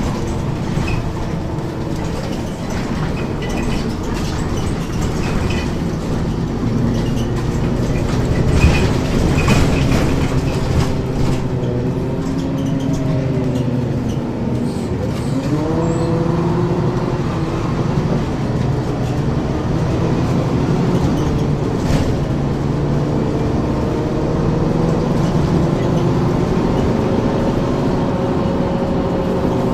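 1994 Ikarus 435 articulated bus with a ZF gearbox running under way. The engine note falls about halfway through, then rises again as it picks up speed, with scattered rattles and a sharp click.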